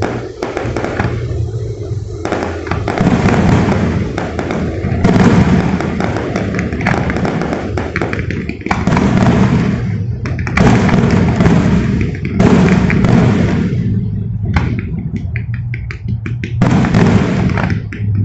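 Fireworks going off in dense, loud volleys of bangs and crackling. About three-quarters of the way through they thin to scattered pops, then another volley starts near the end.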